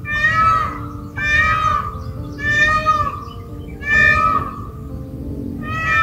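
Peacock calling: five loud calls in a row, about one a second, over steady background music.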